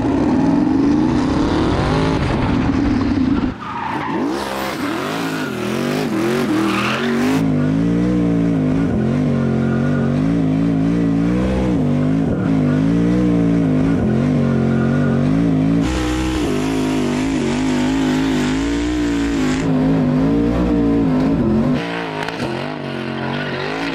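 Ford Mustang Hoonicorn V2's twin-turbo V8 spinning donuts, its revs rising and falling over and over, with the tyres squealing and skidding. The sound jumps abruptly a few times.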